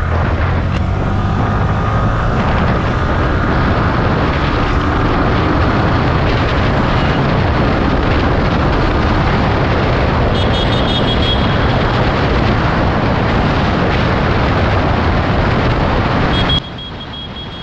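Motorcycle riding at speed: heavy wind rush on the action camera's microphone over the engine running underneath. The level drops suddenly near the end.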